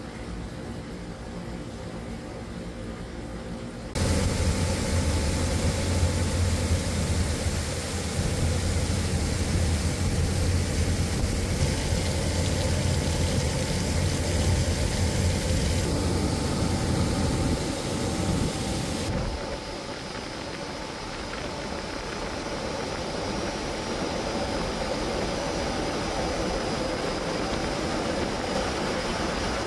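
Baltimore Aircoil CXV 297 WR evaporative condenser running, at first a steady machine hum. About four seconds in it turns abruptly into loud rushing and splashing of spray water falling through the unit, with a deep rumble. The water sound goes duller and softer about two-thirds of the way through.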